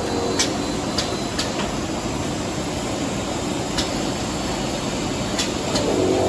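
Jumbo toilet-roll shrink-wrapping and sealing machine line running: a steady mechanical noise from the conveyor and machinery, with sharp clicks every second or so. Near the end, a steady motor hum with several pitches comes in.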